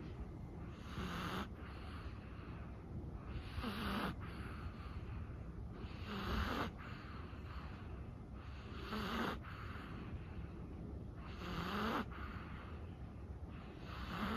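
A sleeping Chihuahua snoring, with a short snoring breath about every two and a half seconds.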